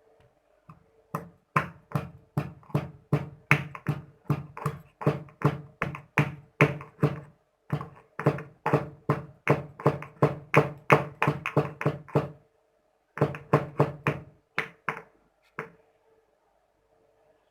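Steady rhythmic knocking on a hard surface, about three strikes a second, with a short break about two-thirds through and then a few more strikes.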